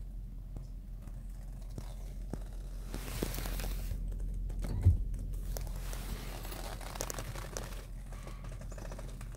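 Handling noise from a handheld phone being moved about: rustling and crinkling, with a single thump about five seconds in, over a steady low hum.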